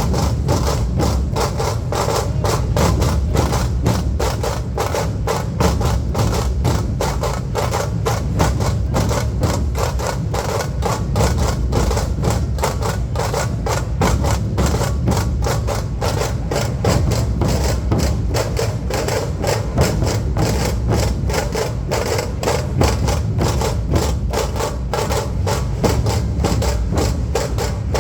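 Dhol drums beaten in a fast, steady, driving rhythm: rapid sharp strokes over a heavy, continuous booming low end.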